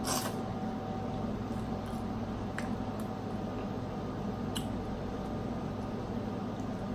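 Wet chewing and squishing of boiled seafood, with a few small clicks, over a steady background hum.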